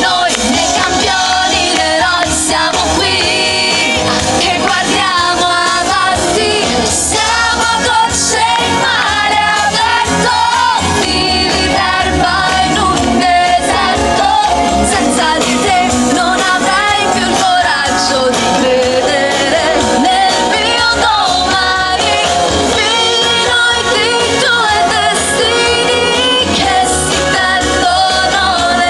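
A woman singing an Italian pop song live into a microphone over loud accompanying music.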